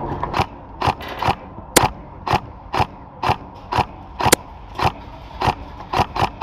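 Footsteps of an airsoft player moving at a quick pace, about two steps a second, with gear rattling on each step. Two sharper clicks stand out, one a little before two seconds in and one about four seconds in.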